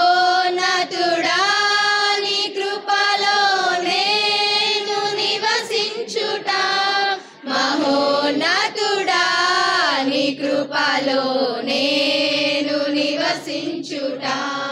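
Choir of young women singing a Telugu Christian worship song in unison, in long held notes that slide between pitches.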